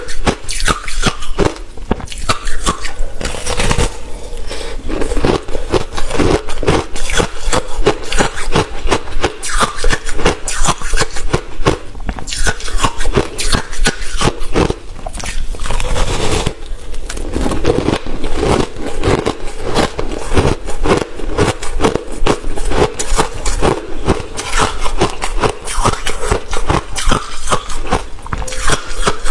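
Chunks of freezer frost and ice being bitten and chewed, a rapid, irregular run of crisp crunches.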